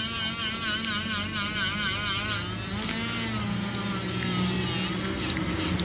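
Small brushed DC motors spinning on their speed controller, whining steadily, as a sandpaper roll is held against the wooden discs on their shafts to sand them round. The whine wavers under the sanding load, then shifts in pitch about halfway through.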